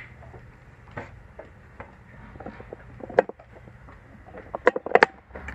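Handling noise from a phone fitted with a clip-on lens: a scatter of sharp clicks and knocks, the loudest about three seconds in and a quick cluster near the end, over a low steady hum.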